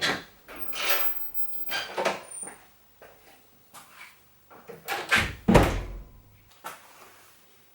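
A series of separate knocks and clunks, about six in all, the loudest a deep thud about five and a half seconds in.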